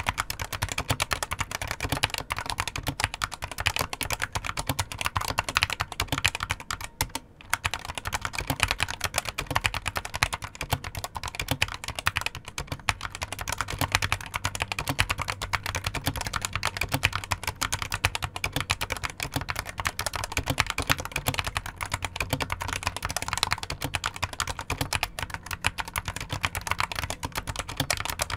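Fast, continuous typing on a Geek GK61 mini mechanical keyboard with light Gateron optical yellow linear switches: dense key clacks with a brief pause about seven seconds in. There is a little hollow ring from the case, present but not harsh.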